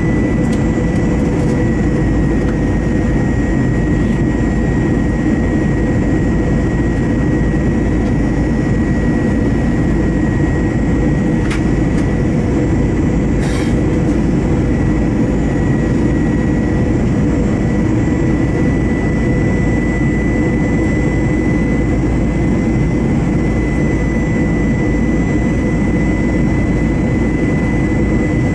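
Cabin noise of an Airbus A321 on approach, heard from a window seat beside the wing: its CFM56-5B turbofan engines running steadily, a deep rush with a steady high tone over it. A couple of faint clicks come midway.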